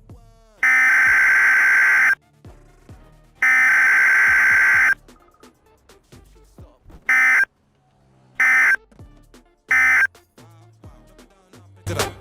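Emergency Alert System SAME data bursts, loud and buzzy: two long bursts of about a second and a half each, a little over a second apart, then after a lull three short bursts about a second and a half apart, the end-of-message signal. Music starts near the end.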